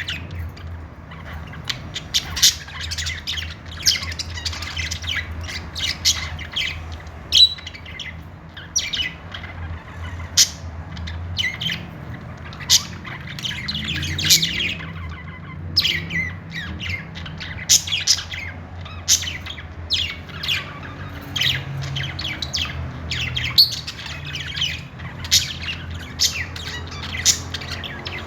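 Budgerigars chattering, with many short, sharp squawks and chirps several times a second over a steady low hum.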